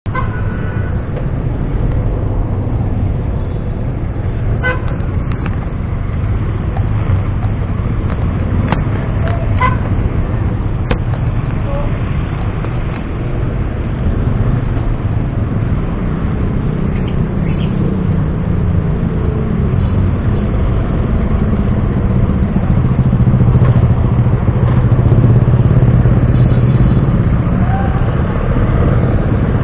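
Motor scooter running on a ride through city traffic, a steady low engine and road noise that grows louder about 23 seconds in. A vehicle horn sounds in the first couple of seconds.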